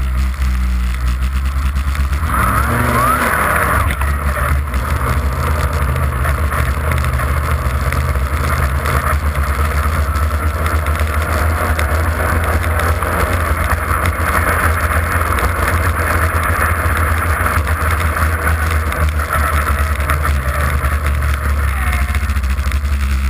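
Polaris RMK 800 snowmobile's two-stroke twin engine running steadily under way, heard from the rear of the sled. A brighter hiss sets in about two seconds in and runs on.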